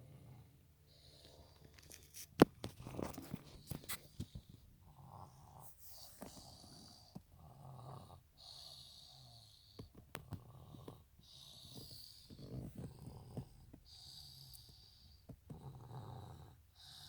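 Snoring in her sleep, a rasping breath about every one and a half to two seconds. A sharp click about two and a half seconds in is the loudest sound, with smaller clicks around four and ten seconds.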